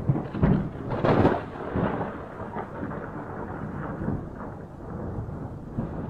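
Thunder rumbling over steady rain, the loudest peal about a second in.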